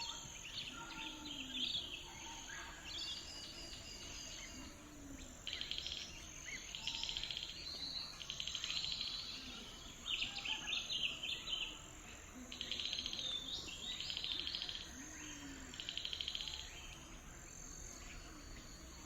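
Lakeside nature ambience: songbirds singing repeated trilling phrases every second or two over a steady high drone of insects.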